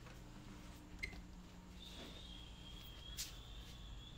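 A faint, steady, high-pitched tone comes in about halfway through, with two soft clicks, one before it and one after.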